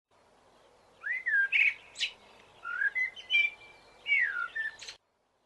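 A songbird singing short phrases of sliding whistled notes mixed with chirps, beginning about a second in and stopping abruptly near the end.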